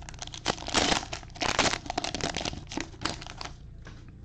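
Cellophane wrapper of a Panini Prizm football cello pack crinkling and tearing as it is pulled open by hand, with two loud rustles around one and one and a half seconds in, then lighter crackles.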